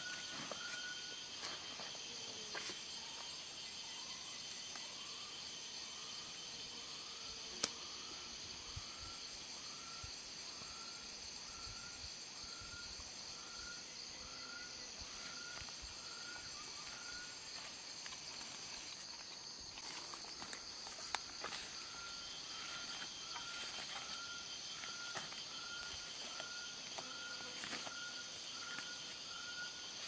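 Forest ambience: insects droning steadily at a high pitch, over a short call note repeated a little more than once a second that pauses briefly past the middle. A few sharp clicks stand out, the loudest about a quarter of the way in.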